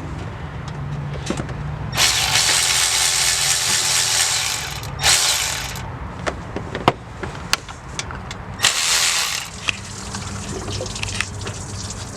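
Three bursts of hissing pressurized spray, the first nearly three seconds long and the others about a second each, with a few sharp metallic clicks between them.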